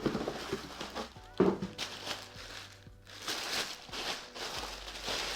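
Packaging rustling and crinkling as items are handled during an unboxing, with a couple of sharp knocks in the first second and a half.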